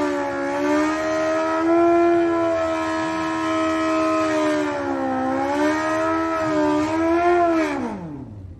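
High-revving motorcycle engine held at steady high rpm with small wavers and two brief dips, then revs falling away quickly near the end as the throttle closes.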